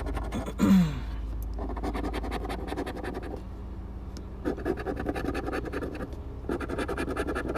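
Scratch-off lottery ticket having its coating scraped away in quick, rapid strokes. The scraping comes in several runs with short pauses between them.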